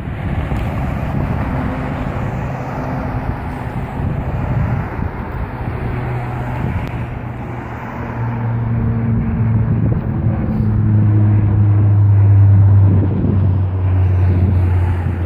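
De Havilland Dash 8-400 twin-turboprop airliner passing overhead: a steady propeller drone with a low hum of several tones over a rushing noise. It grows louder toward the end.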